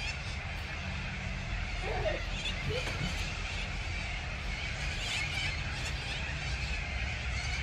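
Outdoor ambience: a steady low rumble with faint high chirps, and two brief faint calls about two and three seconds in.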